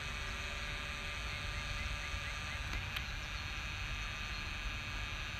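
Steady low rumbling background noise with a few faint high chirps and a single sharp click about three seconds in.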